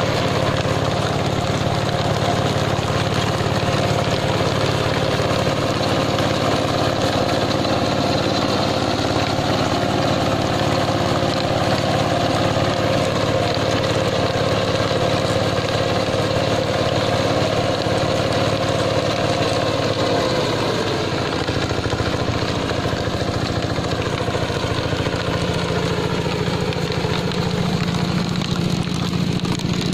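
Yanmar SS70C-G single-cylinder diesel engine on an old walk-behind trencher running steadily. About two-thirds of the way through, its note drops and changes, as if the engine speed or load shifts.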